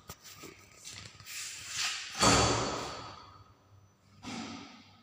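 A single thump about two seconds in that fades out over about a second, with shorter rustling noises before it and another brief one near the end.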